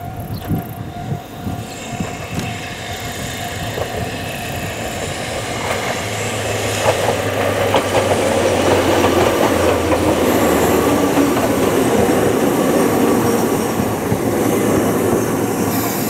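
Ohmi Railway electric train 805F approaching and passing on the track. Wheel-on-rail rumble with scattered clicks builds up, is loudest about halfway in as the cars go by, then slowly fades as the train moves away.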